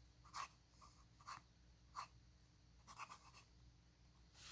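Faint scratching of a Waterman's 94 fountain pen nib on paper: about five short writing strokes, roughly a second apart.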